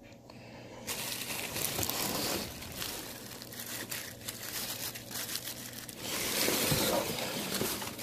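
Shipping-box packaging rustling and crinkling as it is handled while a vacuum cleaner is taken out. It starts about a second in and grows louder near the end.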